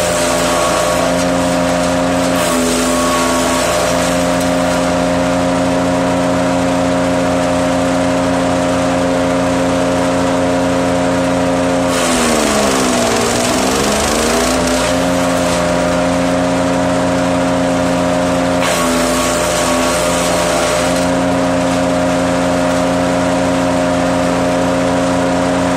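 Petrol wood chipper running at a steady speed. It bogs down in pitch under load as wood goes through, most deeply about twelve seconds in, and picks back up a couple of seconds later. Rushing, crunching chipping noise rises with each dip.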